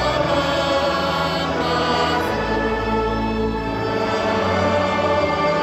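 Choir and congregation singing a hymn in long sustained chords, accompanied by a pipe organ with held bass notes.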